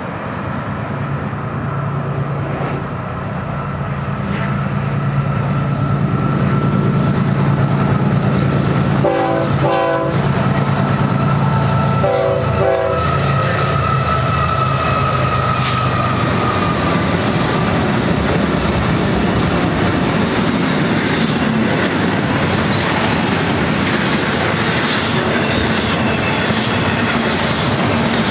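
BNSF freight train passing: a consist of GE diesel locomotives running under load, sounding the horn in short blasts around nine and twelve seconds in, followed by double-stack container cars rolling by with steady wheel clatter on the rails.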